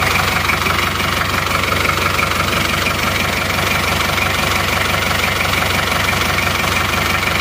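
Isuzu Panther 2.3's four-cylinder diesel engine idling steadily, heard from beneath the car. It runs evenly, with only thin blow-by from the lower breather pipe: the sign of an engine still in good health seven years after its cylinders were relined.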